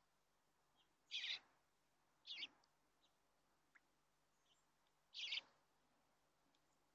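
Bluebird calls: three short, high calls, about a second, two and a half seconds and five seconds in.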